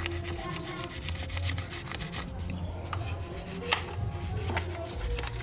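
Toothbrush bristles scrubbing the wet, lathered metal of a motorcycle engine block in quick back-and-forth strokes, working off caked-on deposits. One sharper click about halfway through.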